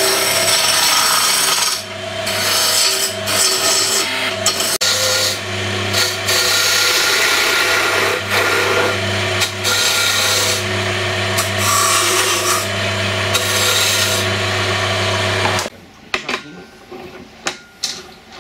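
Wood lathe running with a turning tool cutting a spinning wood blank: a steady motor hum under a loud scraping cut that breaks off briefly several times as the tool is lifted and re-engaged. The cutting is shaping a spigot on the end of the blank to fit the chuck jaws. About fifteen seconds in the lathe sound stops abruptly, leaving a few light clicks.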